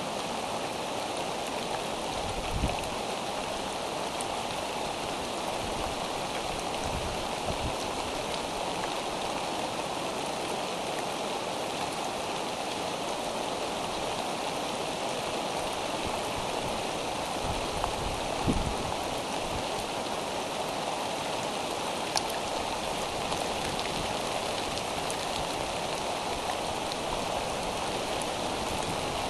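Steady rain falling on the eagle nest and its microphone, an even hiss throughout. A few soft knocks stand out, the loudest about 18 seconds in.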